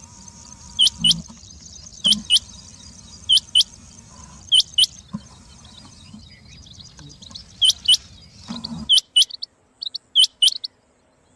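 Rain quail calling: sharp, high notes in pairs, a pair about every second and a quarter, over a faint background hiss that drops out near the end.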